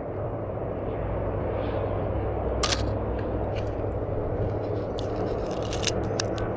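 Canon AE-1 Program 35mm film camera: a single sharp shutter click a little under three seconds in, then a quick run of small mechanical clicks about five to six seconds in. Under them runs a steady low rumble.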